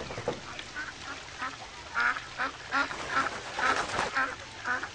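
Domestic ducks quacking over and over, short calls about every half second that grow louder from about two seconds in.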